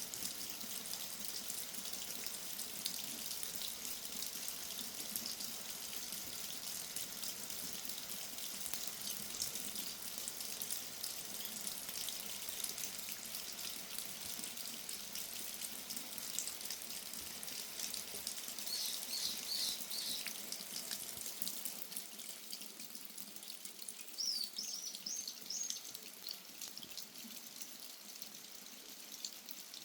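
Steady rain pattering and dripping, with two short runs of high chirping calls from brown-eared bulbuls in the second half.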